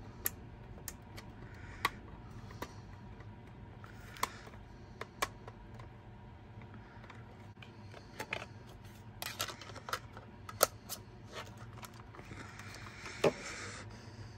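Plastic clicks and light rubbing from a portable CD player being handled, its lid opened and closed. Sharp clicks are scattered throughout, with a run of them a little past the middle and a loud click near the end.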